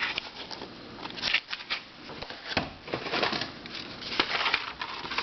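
Small plastic puzzles being handled and moved about: irregular clicks, taps and light rattles, with some rustling.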